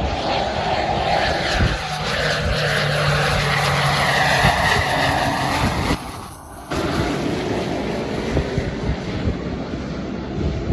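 Pilatus PC-12 single-engine turboprop landing: its PT6A turbine and propeller give a loud steady drone as it passes over the runway, touches down and rolls out. The sound dips briefly a little past halfway.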